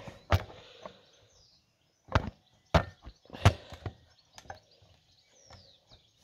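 Irregular knocks and clunks of tools and engine parts being handled and set down, with about four sharp ones, the loudest about three and a half seconds in.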